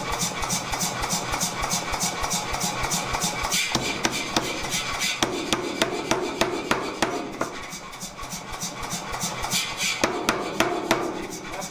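88 lb Anyang power hammer striking a hot swage block in a rapid, even run of blows, several a second. About four seconds in, the blows turn less regular and come as more separate strikes.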